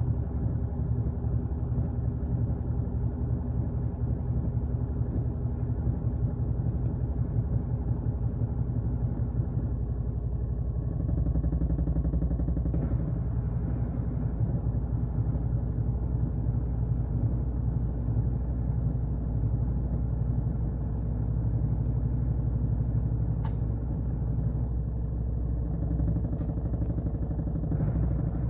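Washing machine running with a steady low hum and fast, even pulsing; one sharp click about 23 seconds in.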